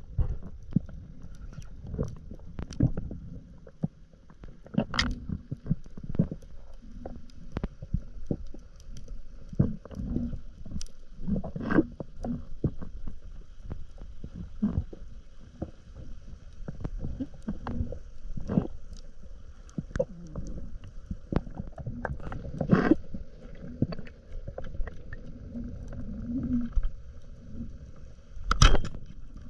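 Underwater ambience picked up by a camera in a waterproof housing: a muffled low rumble of moving water with many irregular sharp clicks and knocks. The loudest knock comes near the end.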